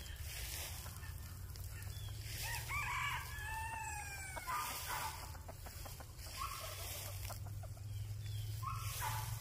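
Rooster crowing once, about three seconds in, then short clucking calls twice near the end, over a steady low hum.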